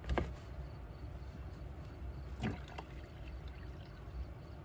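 Water pouring from a plastic bottle into a coffee machine's water reservoir, a faint steady trickle, with two light knocks, one just after the start and one about halfway through.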